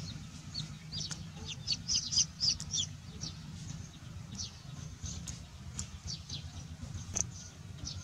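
Birds chirping in many short, high-pitched notes, densest about two seconds in, over a steady low hum.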